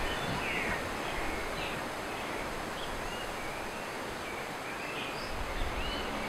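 Outdoor bird ambience: a steady hiss with scattered short, curving chirps from small birds.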